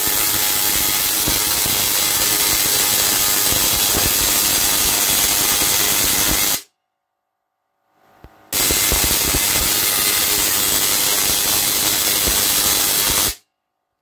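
Dual microwave-oven-transformer Tesla coil with a copper primary coil firing: the loud, dense crackle of its discharges striking the ground and a ladder. It cuts off abruptly about six and a half seconds in, is silent for about two seconds, then fires again for about five seconds before cutting off.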